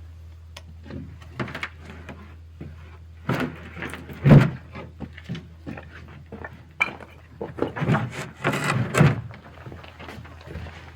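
Wooden formwork boards being handled and pulled off a rammed earth wall: scattered wooden knocks and clatters, a heavy thud about four seconds in and a busier run of knocks near eight to nine seconds, over a steady low hum.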